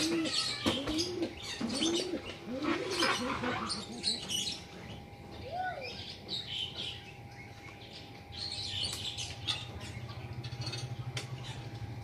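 Birds calling: a run of low, arching cooing notes repeated for the first four seconds or so, with scattered high chirps throughout.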